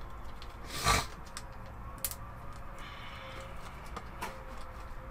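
Small plastic miniatures and their packaging being handled on a table: a few sharp clicks and a soft rustle, with one short, louder burst of noise about a second in.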